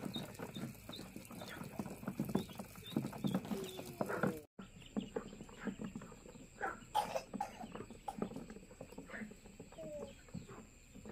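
A flock of poultry calling: many short calls one after another. The sound breaks off abruptly about four and a half seconds in, then the calls go on against a slightly different background.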